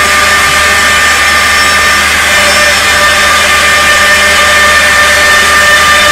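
A CNC woodworking machine running and cutting wood: a steady high whine from the spindle over continuous cutting noise.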